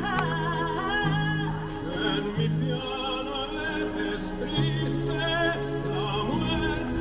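Background music: a classical piece with an operatic voice singing long notes with vibrato over held bass notes.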